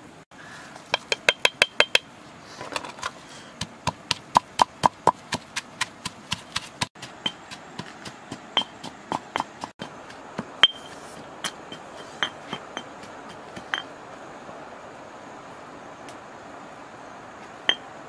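Stone pestle pounding in a stone mortar: sharp clinking knocks, a quick run of about six a second at first, then a steadier run of about three a second, then scattered strikes and one last knock near the end.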